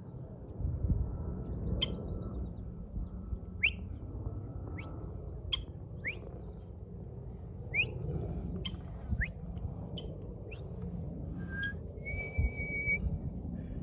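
Birds calling in short, quick rising whistled chirps, spaced irregularly, with one longer steady whistle near the end, over a low rumble.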